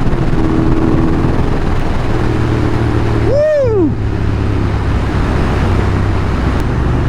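Motorcycle engine running under way at steady speed, with wind and road noise, as the bike pulls strongly. Partway through, a short rising-and-falling whoop of a voice cuts in.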